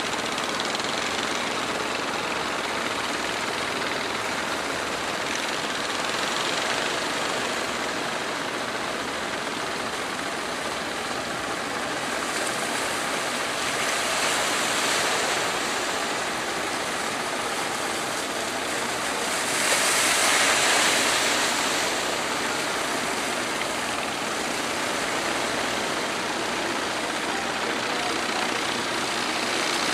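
Rough sea surf and wind, a steady rushing noise that swells about halfway through and again, loudest, about two-thirds of the way through as bigger waves break.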